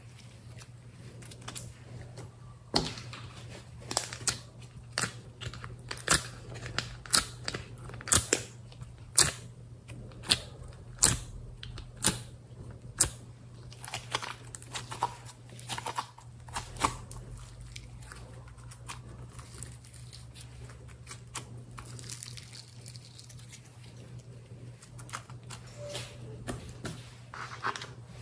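Slime being squeezed, stretched and pressed by hand, giving sticky squelches and sharp pops and clicks. The pops come about once a second through the first half, then fewer and softer.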